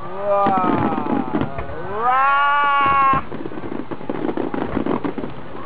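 Spectators letting out long drawn-out "waaah" exclamations of wonder, the first falling in pitch, the second rising and then held, over the pops and crackle of fireworks bursting.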